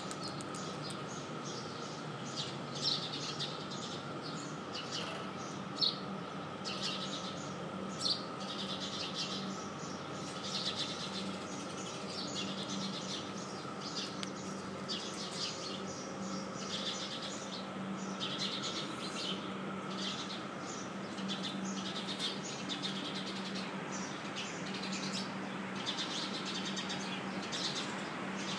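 Small birds chirping in short repeated bursts over a steady low hum, with a few sharp knocks near the start.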